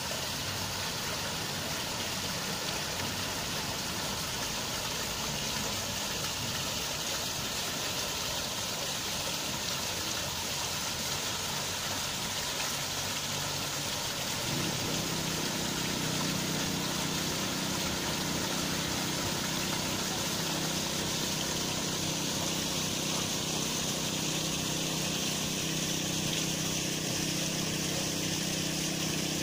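Steady outdoor background hiss. About halfway through, a steady low mechanical hum joins it and holds.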